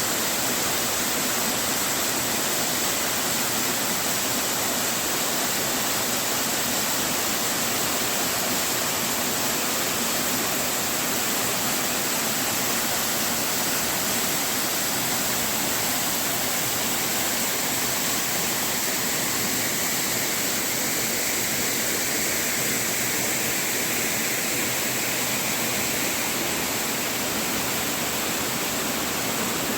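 Water pouring over a waterfall: a steady, unbroken rush of falling and splashing water.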